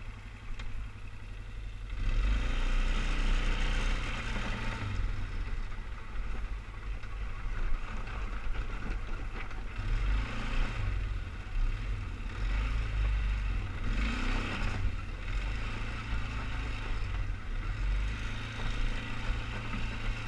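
2003 Polaris Sportsman 500HO 6x6 ATV's single-cylinder four-stroke engine running as the quad rides along a dirt trail, growing louder about two seconds in.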